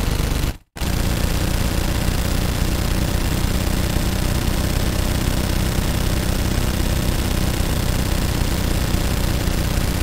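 Automatic gunfire, fired as a rapid, continuous burst. It cuts off briefly about half a second in, then a long unbroken burst starts and runs on.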